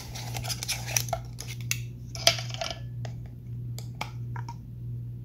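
Metal screw lid being twisted off a glass mason jar: irregular scraping and sharp clicks of metal against the glass threads, over a steady low hum.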